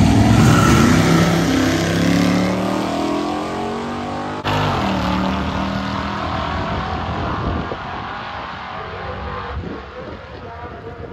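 Drag car engine at full throttle, accelerating hard down the strip. Its pitch climbs, drops abruptly about four and a half seconds in, climbs again, then the sound fades toward the end.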